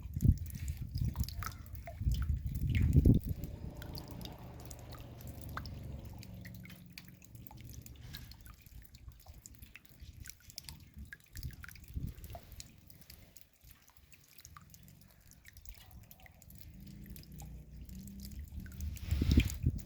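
Raindrops dripping in scattered, irregular ticks. A low rumble comes and goes in the first three seconds and again near the end.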